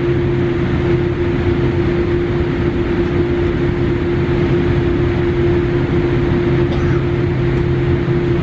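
Jet airliner cabin noise while taxiing slowly to the gate: a steady rumble from the idling engines and cabin air, with a constant humming tone over it.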